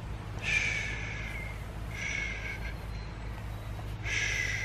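A sleeping child's breathing close to the microphone: three soft breaths, a little under two seconds apart, over a low steady hum.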